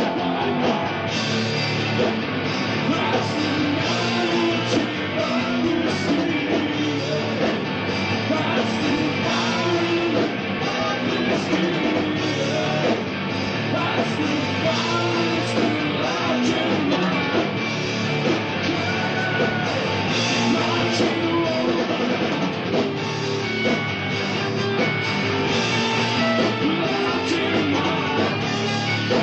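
Post-hardcore rock band playing live: electric guitars and drum kit going steadily, with singing, heard through a flat two-channel cassette recording.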